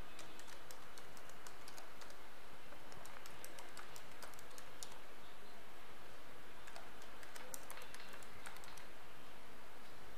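Typing on a computer keyboard: quick runs of keystrokes with a short pause about halfway through, over a steady faint hiss.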